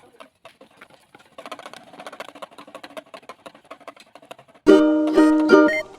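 Faint crackling and rustling, then bright plucked ukulele-style background music starts abruptly about three-quarters of the way in, with several short picked notes.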